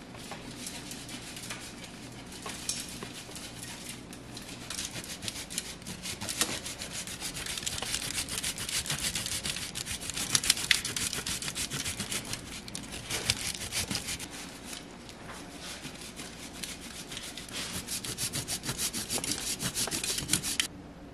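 A block of hard cheese grated on a flat handheld metal grater in rapid back-and-forth scraping strokes. It stops abruptly just before the end.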